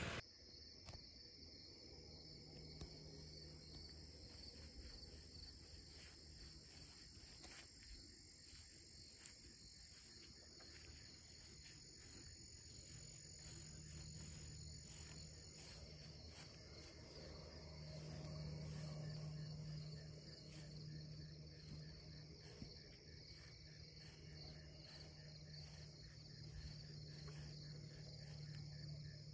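Faint chorus of crickets trilling steadily at a high pitch, with a low hum underneath that comes and goes.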